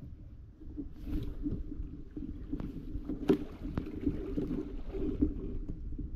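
Water lapping and slapping against a kayak hull in a steady low, uneven wash, with a few sharp knocks on the hull, the loudest about a third of the way through.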